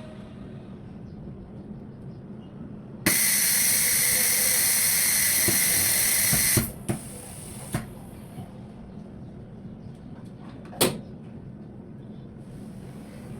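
A loud, steady hiss of compressed air starts abruptly, runs for about three and a half seconds and cuts off, followed by a few sharp clicks, the loudest about eleven seconds in. A low steady hum runs underneath.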